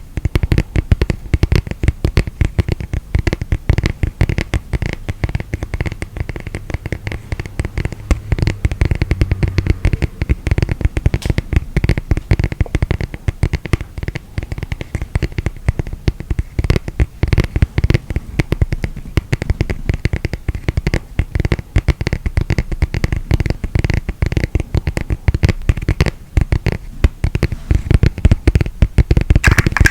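Rapid, dense scratching and clicking on a miniature tatami mat's woven surface.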